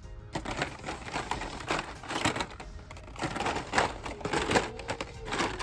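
Hot Wheels plastic blister-card packages clacking and rattling on metal peg hooks as they are flipped through by hand: a run of quick, irregular clicks.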